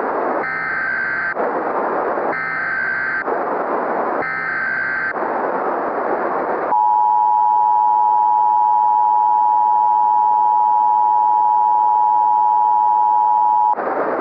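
Emergency Alert System broadcast over a hiss of static. First come three short screeching bursts of SAME header data, each under a second with about a second between them. Then the two-tone EAS attention signal sounds, two steady tones near 853 and 960 Hz held together for about seven seconds, and the static hiss comes back near the end.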